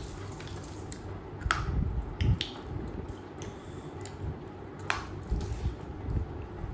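Close-up eating sounds of a person chewing duck meat, with low muffled chewing and a few sharp wet clicks from the mouth.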